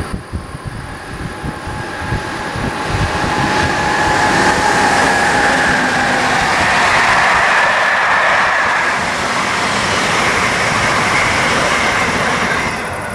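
Passenger train of coaches with car-carrier wagons passing at speed on an electrified main line. The rolling noise swells over the first few seconds, stays loud with a steady whine, and falls away near the end as the last wagons go by.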